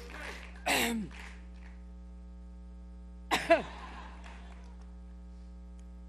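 A woman coughing during a severe coughing fit: one cough about a second in, then two quick coughs about halfway through, over a steady mains hum from the sound system.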